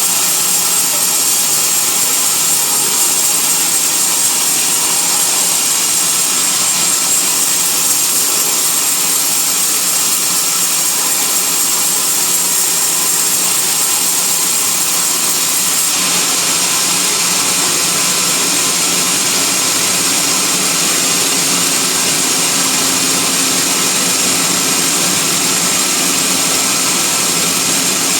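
Bandsaw sawmill running steadily without a break: a loud, even machine hiss and whine with a few steady tones in it.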